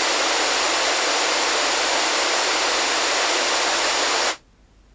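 Pink noise played through a JBL 2446 compression driver on a 2380A horn, the high-frequency section on its own: a steady, even hiss with no bass. It cuts off suddenly about four seconds in, leaving only a faint background hiss.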